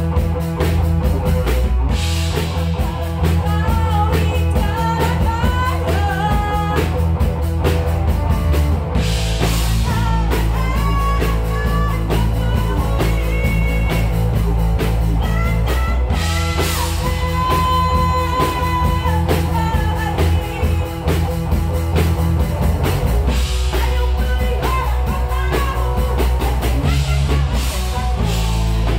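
Live rock band playing: a singer's voice over electric guitar, bass guitar and drum kit, with a heavy, steady low end.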